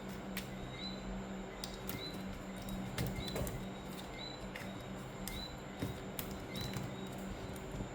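A small bird chirping over and over, a short high chirp about once a second, over scattered light clicks and a steady low hum.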